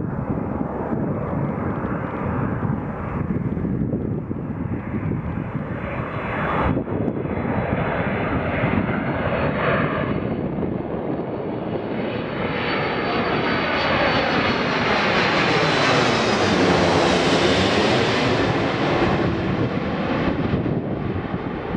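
Airbus A330-300 airliner on final approach with landing gear down, its twin jet engines running with a high whine as it passes low overhead. The noise grows louder and peaks about three-quarters of the way through, with a sweeping phasing as the plane goes over, then begins to fade.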